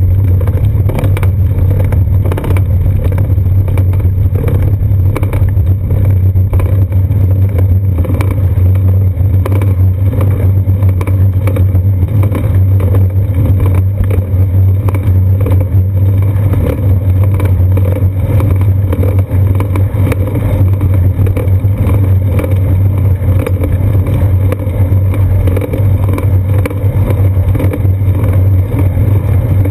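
Steady low rumble of a moving bicycle picked up by a seat-post-mounted GoPro Hero 2: wind on the camera housing and road vibration through the mount. A few sharp knocks come as the tyres cross the wooden boardwalk in the first few seconds.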